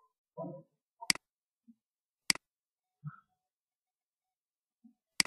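Three sharp computer mouse clicks: two about a second apart, then a third after a pause of nearly three seconds.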